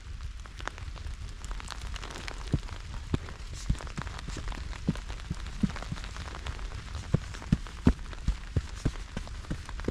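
Raindrops ticking irregularly on a surface close to the microphone, a few sharp taps a second, over a steady low wind rumble.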